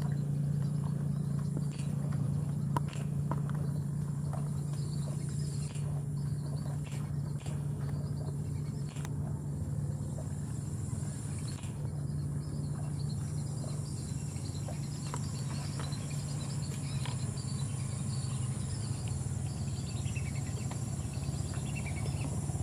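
Insects chirring steadily in a high-pitched chorus over a steady low hum, with scattered faint ticks and rustles.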